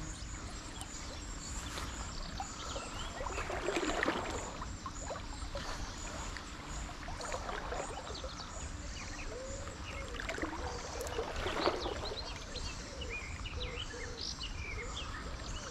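River water running steadily, with birds chirping here and there.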